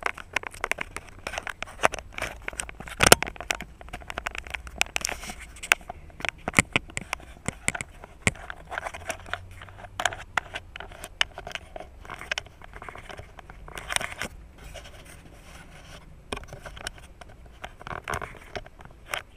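Handling noise from fingers rubbing, tapping and clicking on a DOD F900LHD dash camera's body and mount, picked up close by the camera's own built-in microphone: a run of irregular clicks, knocks and scrapes.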